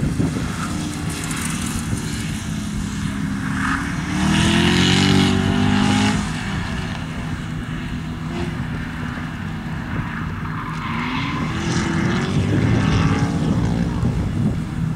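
C6 Corvette Z06's 7.0-litre LS7 V8 running hard around an autocross course, rising in pitch twice as it accelerates between cones, loudest about four to six seconds in.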